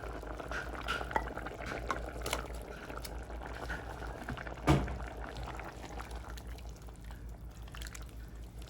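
Water being poured into a cooking pot for kimchi soft tofu stew, running for about five seconds and then stopping, with small clicks and one sharp knock of a utensil or container near the end of the pour.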